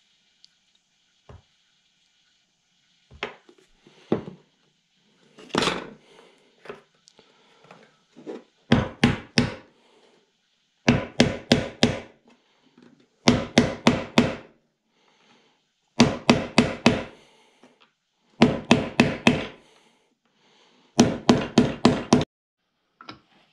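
A hammer tapping glued wooden ladder parts together on a workbench, with a few lighter knocks first and then six quick bursts of about five sharp taps each, roughly every two and a half seconds.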